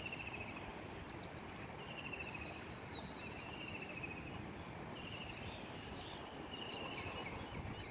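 Birds calling in short trilled chirps, repeated every second or so at a few different pitches, over a steady outdoor hiss of wind and moving floodwater.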